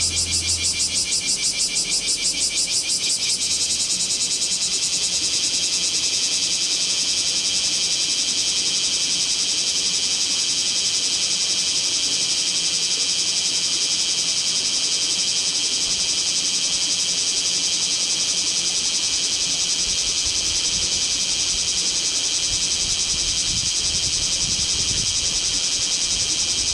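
Bear cicada (kumazemi) singing: a loud, high, rasping buzz, rapidly pulsing at first and settling into a steadier drone about three and a half seconds in.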